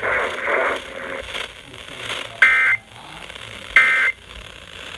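Two short bursts of EAS digital data over weather-radio hiss, each a shrill two-tone warble about a third of a second long, about a second and a half apart: the end-of-message code that closes a NOAA Weather Radio warning broadcast.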